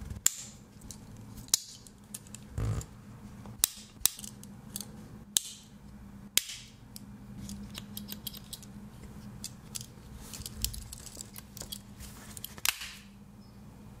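Sharp metal clicks of a Victorinox Angler Swiss Army knife's blades and tools being opened and snapped shut on their back springs, about seven loud clicks scattered through. Between them come softer ticks as its spring-loaded pliers are worked open and shut, with a duller knock a little before 3 seconds in.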